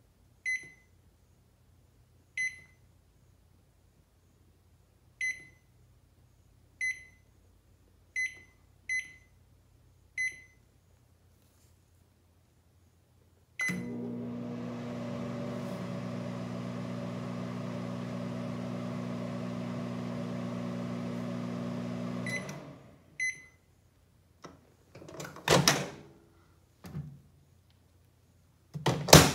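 Sharp Carousel microwave oven: seven short keypad beeps as a cooking time is entered, then the oven runs with a steady hum for about nine seconds before it stops. Two more beeps follow, then the door is opened with clunks and shut with a loud bang near the end.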